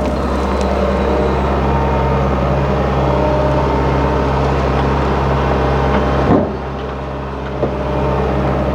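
Heavy construction machine's diesel engine running steadily with a low hum. About six seconds in there is a knock, and after it the sound turns duller.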